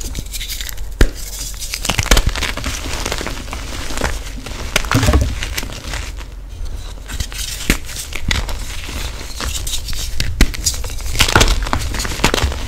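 Hands crushing a block of reformed gym chalk and squeezing its crumbled chunks in a bowl of loose chalk powder: dry, irregular crunches and crumbling, with the powder rustling between the fingers and a few sharper snaps as larger pieces break.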